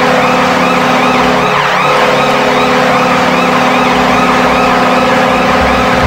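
The Washington Capitals arena goal horn sounding: a loud, steady chord of held tones, overlaid by a wailing sound that rises and falls about twice a second.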